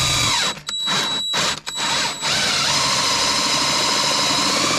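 Cordless drill boring a hole up through a soffit board with an auger bit. The drill stops and starts three times in the first two seconds, then runs steadily.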